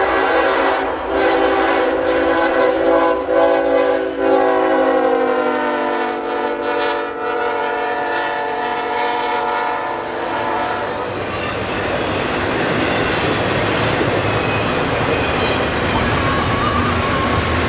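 CSX diesel freight locomotive's multi-chime air horn sounding a long chord that drops in pitch about five seconds in as the locomotive passes, then cuts off about eleven seconds in. After that, the rumble and clatter of the intermodal cars rolling by on the rails.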